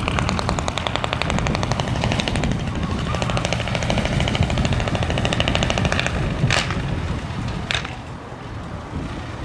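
Small decorated dump truck's engine running as it drives slowly by, its exhaust giving a rapid, even rattle of pulses over a low rumble. The pulses fade out about six seconds in. Two short sharp sounds come about a second apart near the end.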